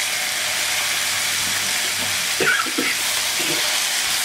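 Chipotle-marinated chicken thighs sizzling steadily in oil in a ridged grill pan, with a couple of brief knocks around two and a half seconds in as tongs turn a thigh.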